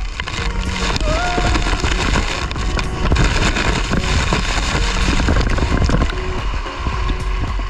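Rushing, spattering water as a rider speeds feet-first down a steep water slide, with spray hitting the action camera's housing. It is loudest in the second half, then eases near the end, with faint background music underneath.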